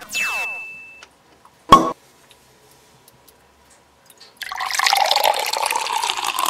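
A brief falling swoosh effect with a held tone, then one sharp click, then liquid poured from a plastic bottle splashing steadily into a glass bowl, starting about two-thirds of the way in.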